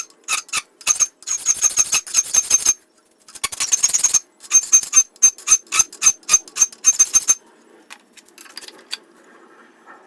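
Hand file being stroked rapidly across the steel of a cleaver forged from a mower blade, about three strokes a second, each with a high metallic ring. The strokes come in two runs with a short pause between, then stop about three-quarters of the way through, leaving faint scraping.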